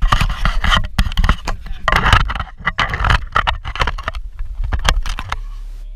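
Loud clattering and rattling with many sharp knocks. About five seconds in it gives way to the steady low hum of a microwave oven running.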